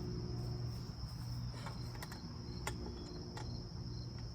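A few light clicks and taps as small parts are handled and fitted, about four over the few seconds, over a steady high-pitched whine and a low hum.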